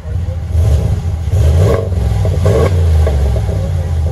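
A 2020 Ram 1500's 5.7-litre Hemi V8 is revved in several short throttle blips about a second apart. It is heard through a single 3-inch pipe, a Flowmaster 40 Series muffler, a Y-pipe, twin resonators and dual tailpipes.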